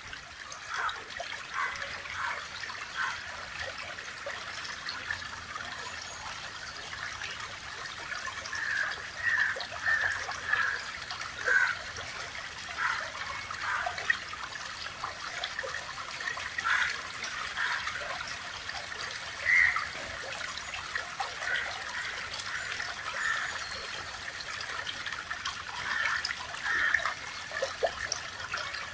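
Natural water flow trickling steadily, with frequent irregular small splashes and gurgles.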